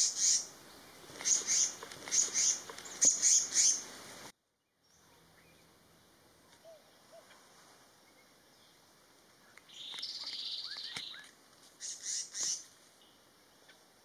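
Black-naped monarch calling: a run of short, sharp, high notes, several in quick pairs, for about four seconds. After a short break come a buzzy rattling note lasting over a second about ten seconds in, and a few more sharp notes soon after.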